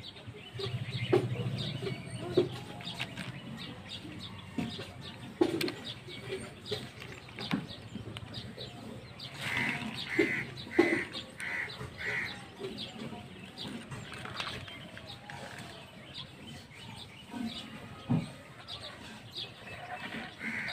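Birds chirping again and again, with a run of five quick calls about ten seconds in, and a few light knocks of plastic toy vehicles being handled and set down on concrete.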